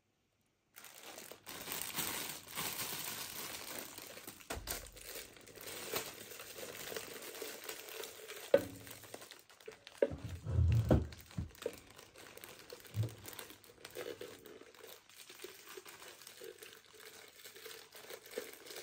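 Plastic bag of popcorn crinkling and rustling as it is handled and tipped upside down into a plastic jar, with a few dull knocks about halfway through.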